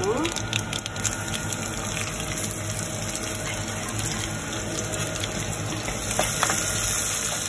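Chopped garlic sizzling in hot oil with mustard, fennel and fenugreek seeds in a steel kadai: a steady frying hiss. A metal ladle stirs and scrapes the pan about six seconds in.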